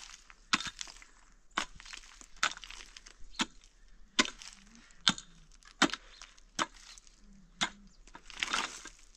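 Pickaxe striking rocky, stony ground, about one blow a second, each a sharp crack. Near the end a longer scraping crunch of loosened stones.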